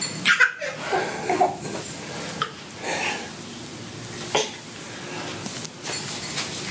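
An infant's brief babbles and grunts, mixed with rustling and a few soft bumps as she crawls over a plush pet bed on carpet.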